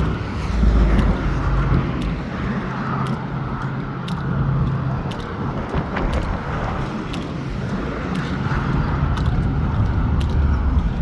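Highway traffic passing on an interstate bridge: a steady rumble of tyres and engines, with a vehicle's low engine drone through the first half. Faint footstep clicks tick about once a second.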